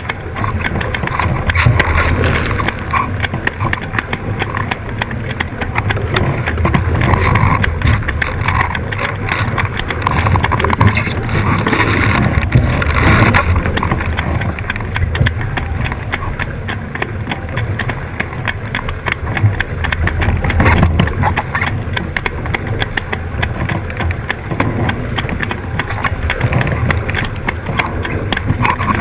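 Wind buffeting the onboard camera's microphone and water rushing past the hull of a fast-sailing 18ft skiff, a loud, uneven rumble with splashes.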